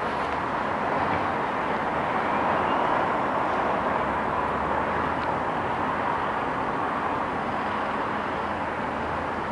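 Steady outdoor city background noise, a continuous rush like distant traffic, with no distinct events.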